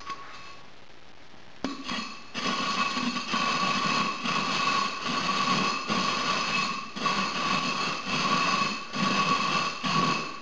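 A foundry crucible turned upside down and rubbed on a concrete floor: a rough grinding scrape in uneven strokes, starting about two seconds in, with a faint ringing tone through it. The razor-sharp, flame-eroded lip is being worn away so it ends up thicker.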